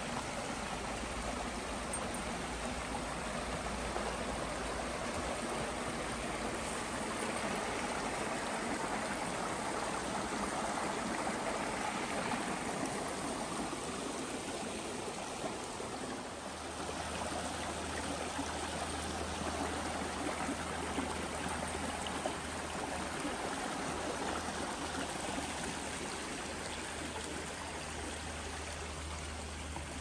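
Small rocky woodland brook running steadily over stones and little cascades, an even rush and babble of water.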